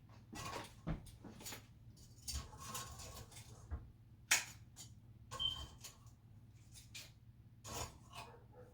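Light scraping, rubbing and scattered clicks of cooked chicken wings being handled and moved about in a dish, with one short high clink about five seconds in.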